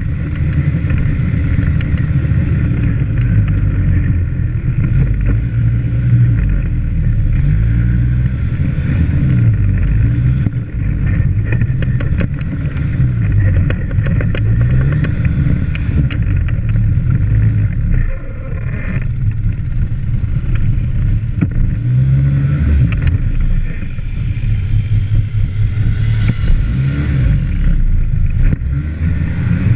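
ATV engine running close by, its pitch rising and falling again and again as the throttle is worked over uneven dirt trail, with frequent knocks and rattles from the machine jolting over bumps.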